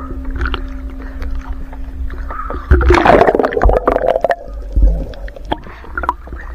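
Sea water splashing and gurgling around an action camera at the waterline as it dips under and comes back up beside a boat, with heavy low thumps as it plunges, the loudest about three seconds in and again near five seconds. A steady low hum sounds through the water for the first two and a half seconds.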